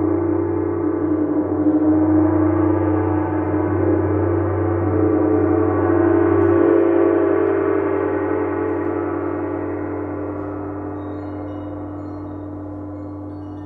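Gong on a floor stand sounding as a continuous wash of many overtones. It swells over the first six or seven seconds, then slowly dies away.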